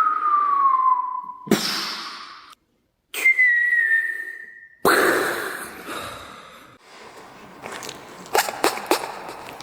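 Mouth-made sound effects: a whistle sliding downward, cut off by a loud noisy burst, then a second, higher whistle falling slightly and again ending in a noisy burst that fades out. A few sharp clicks come near the end.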